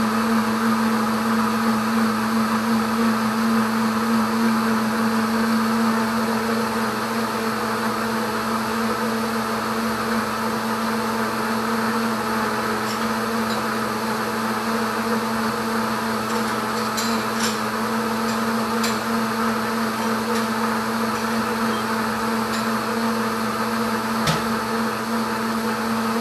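Pampered Chef Deluxe Cooking Blender running steadily on its one-minute smoothie program, blending the freshly cooked lemon curd smooth: an even motor whine over a strong low hum. A few faint clicks come in the second half, and a light knock near the end.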